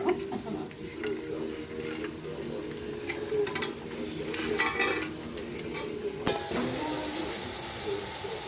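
Chicken liver sizzling in a pan over a wood fire, stirred with a metal utensil that clinks and scrapes against the pan a few times, about three and a half, four and a half and six and a half seconds in, over a steady low hum.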